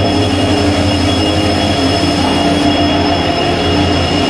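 Diesel locomotive moving past the platform, its engine running loud and steady with a thin, steady high whine above it.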